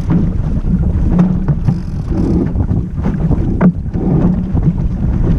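Wind buffeting the microphone of a deck-mounted camera on a small sailboat under way, with water rushing along the hull. A few sharp knocks break through, the clearest about three and a half seconds in.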